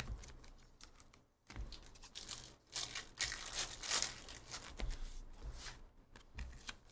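Foil wrapper of a trading-card pack crinkling and tearing as it is ripped open, loudest a few seconds in, with the cards rustling in the hands around it.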